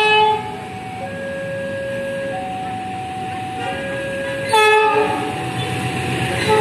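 Two short horn blasts from an approaching CC 206 diesel-electric locomotive, one right at the start and one about four and a half seconds in. Between the blasts a level-crossing warning alarm sounds, alternating between a lower and a higher tone. The rumble of the oncoming train grows near the end.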